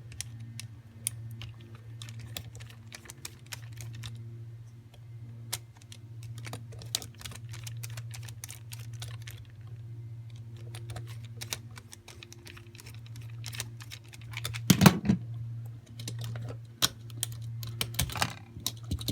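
Scattered light clicks and taps of a screwdriver working the terminal screws of an electrical outlet and of wires being unhooked from them, with a louder knock about fifteen seconds in. A steady low hum runs underneath.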